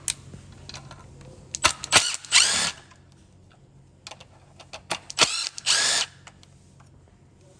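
Cordless power driver spinning out two T30 Torx screws from plastic: two short runs about three seconds apart, each preceded by a few clicks of the bit seating in the screw head.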